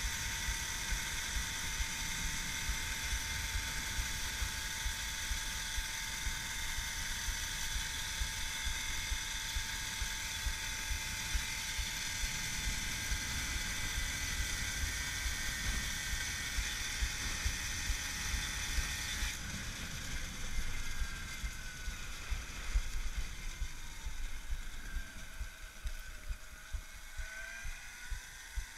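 Whine of the electric Babetta moped's Axi 5345/14HD motor and its controller at a steady cruising speed, with wind buffeting the microphone. About two-thirds through, the whine fades and falls in pitch as the moped slows, then rises again near the end as it picks up speed.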